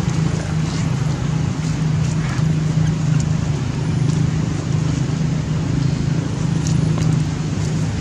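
Steady low mechanical hum, with a few faint ticks over it.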